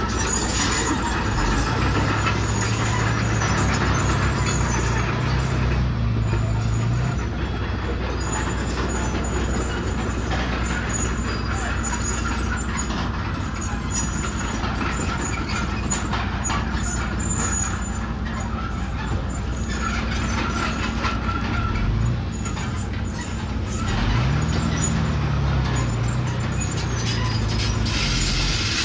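Komatsu D31PX bulldozer working: its diesel engine runs steadily under a clatter of clicks from the machine, and the engine revs up briefly about three quarters of the way through.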